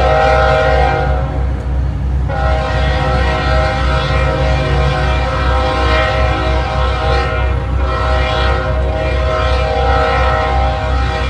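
Diesel locomotive air horn sounding a chord in long held blasts, with a short break about a second or two in, over a low steady throbbing.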